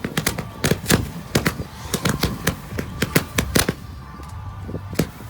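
Fireworks going off in a rapid, irregular string of sharp cracks and bangs that stops about three and a half seconds in, followed by one more crack near the end.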